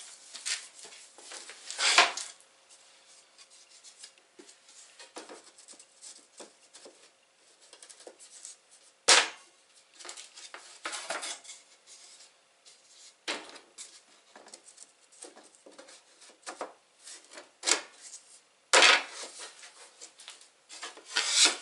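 Laminate parquet boards being laid and slid into place on a steel shelf frame: scattered rubs and light clicks of board on board and on metal, with a few sharp, louder knocks as boards are set down.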